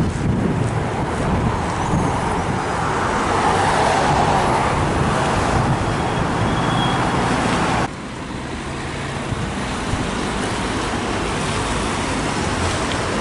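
Road vehicle noise: a steady rush of traffic or a car driving, which drops abruptly to a quieter level about eight seconds in.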